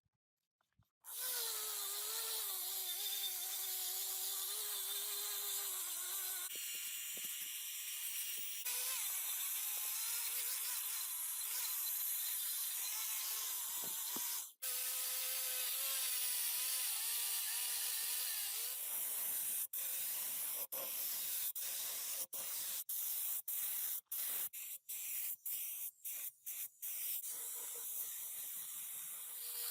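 Steady hissing of a jet of air or spray, with a steady mid-pitched hum beneath it. It starts abruptly about a second in and is broken by a quick string of sudden cuts in the second half.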